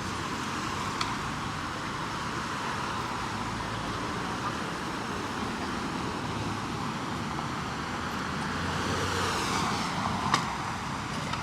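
City street traffic noise: a steady wash of passing road traffic that swells as a vehicle goes by near the end, with a sharp click or knock about ten seconds in.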